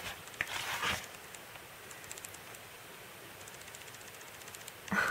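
A page of a thick photo book turned by hand, a short papery swish in the first second, followed by quiet with faint handling ticks.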